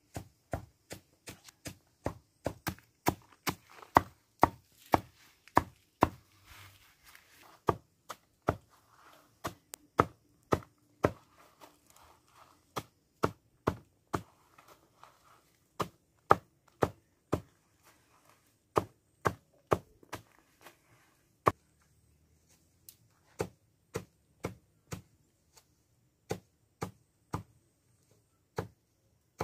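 Hand blade chopping leafy greens for animal fodder: a steady run of sharp chops, about two or three a second at first, then sparser, with a short pause about two-thirds of the way in.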